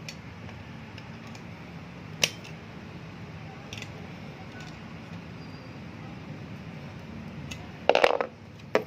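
Sharp clicks and knocks from repair work on a bicycle's pedal axle, over a steady low hum: a single click about two seconds in, a fainter one a little later, and a loud cluster of knocks near the end.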